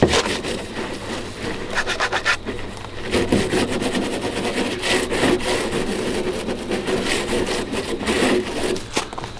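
A hand scrub brush rubbing rapidly back and forth on the painted steel door of a Chevy Silverado 2500HD, a steady rasping scrub as it lifts off grime. It begins with a single knock.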